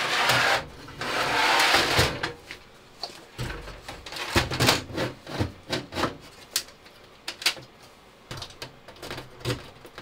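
Server motherboard being fitted into a steel chassis. It scrapes and rubs as it slides in during the first two seconds, then gives a run of scattered light clicks and knocks as it is seated.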